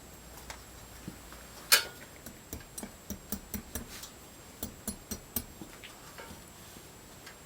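Hammer tapping small nails to fix plaster mesh to a wooden wall: one hard blow about two seconds in, then a run of lighter, quick taps, about three to four a second, that stop a couple of seconds before the end.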